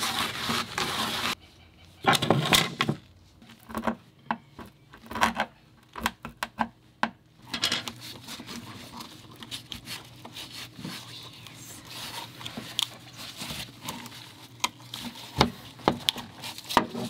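A rag rubbing over the surface for about a second, then a screwdriver blade scraping and picking at hardened old sealant, thought to be 5200, on a rail mounting pad. Irregular scrapes and sharp clicks, settling into steadier scraping about halfway through.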